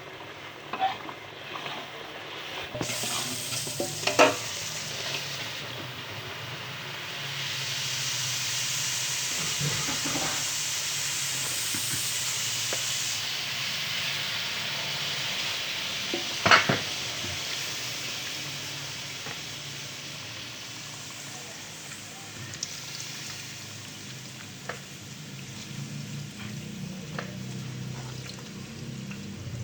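Food frying in a pan, stirred as it cooks: a sizzle that starts suddenly about three seconds in, swells and slowly dies down, with a few sharp knocks of the utensil against the pan.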